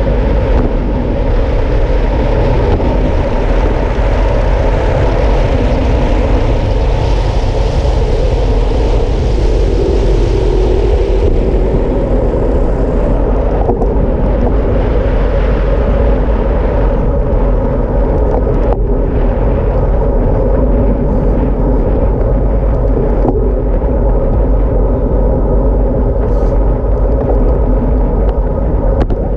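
Steady wind rush and low buffeting on the camera microphone, with tyre noise from a road bike descending fast on asphalt. The higher hiss eases about twelve seconds in.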